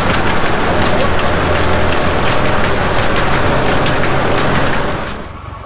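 Model T railcar running along the rails inside a timber-lined tunnel: a loud, echoing din of engine hum and steel wheels on the track, with scattered clicks. The sound drops sharply about five seconds in.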